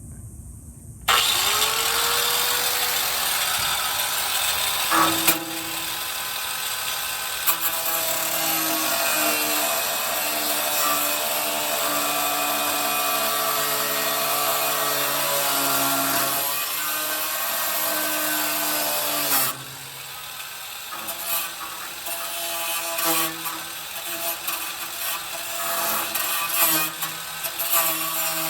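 Warrior angle grinder with a cut-off wheel spinning up about a second in, then cutting steel with a loud, steady grinding hiss, its pitch shifting as it bears into the metal. The cut drops off briefly about two-thirds of the way through, then resumes.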